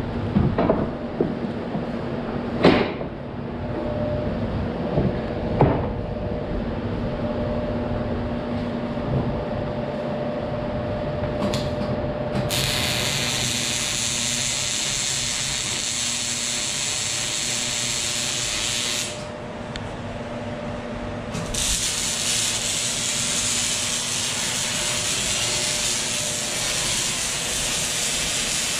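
Electric arc welding on a steel trailer railing: a steady crackling hiss from about twelve seconds in, breaking off briefly near nineteen seconds and starting again a couple of seconds later. Before it, a few sharp knocks over a steady hum.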